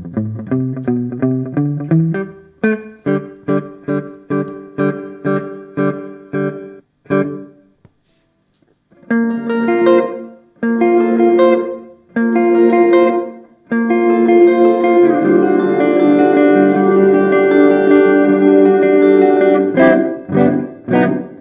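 Electric guitar played through a TC Electronic Hall of Fame reverb pedal. It plays short chords about two a second, pauses, then plays longer ringing chords and one long held chord, with a few quick strums near the end.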